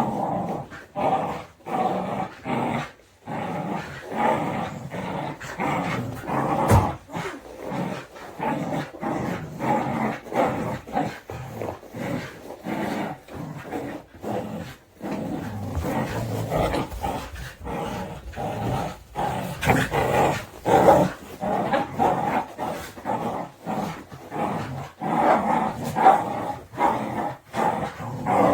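Border Collies growling continuously in play during a tug-of-war game, with occasional short yips and barks; it is playful growling, not aggression.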